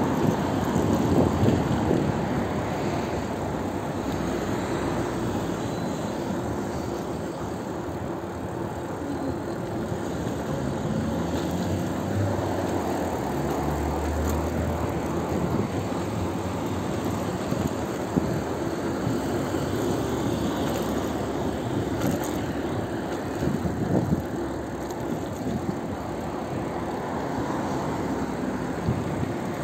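Steady rumbling wind and road noise on the microphone of a camera carried while riding a bicycle, with a few louder bumps near the start and near the end.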